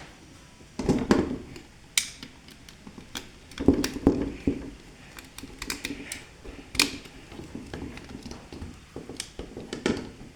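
Irregular clicks and taps with a few louder knocks, about a second in and around four seconds in, from hands working on switch fittings and wires.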